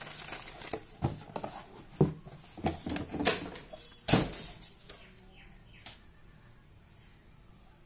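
Paper leaflet and thin cardboard box being handled: irregular rustling and crinkling with sharp crackles, the loudest about four seconds in, dying away after about six seconds.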